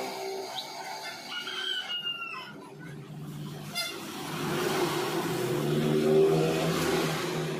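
A short call that glides in pitch, then a sharp click, then a low rumble that swells to a peak about six seconds in and fades away.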